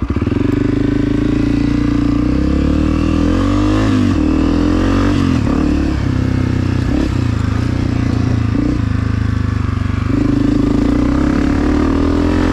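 2022 Honda CRF250F's single-cylinder four-stroke engine through a Pro Circuit exhaust, being ridden under load. The revs climb and drop several times as the throttle is worked.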